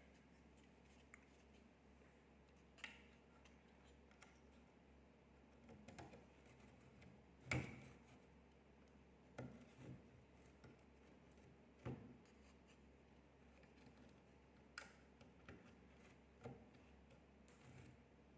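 Scattered faint clicks and taps of small parts and tools being handled on a graphics card during disassembly or reassembly, about a dozen in all at irregular intervals, the loudest about seven and a half seconds in, over a quiet room.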